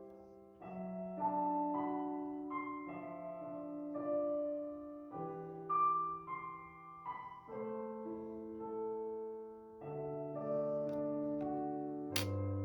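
Slow piano music, notes held and changing about once a second, with a sharp click near the end.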